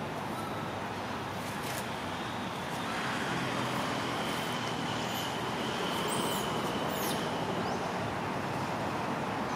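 Steady outdoor background noise, like a distant road's traffic, with a faint thin high tone held for a few seconds in the middle.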